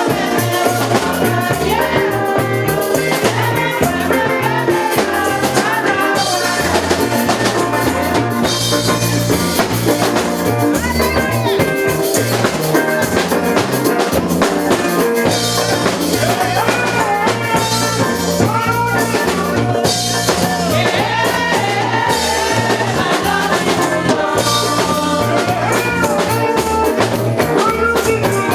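Music with singing over a steady drum kit and bass beat.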